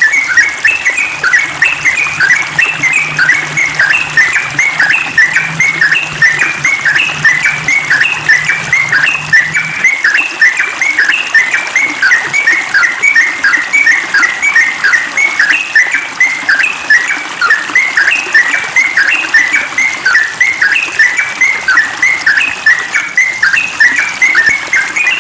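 Yellow-vented bulbul singing rapid, unbroken 'ropel' song: a steady stream of short notes, several a second.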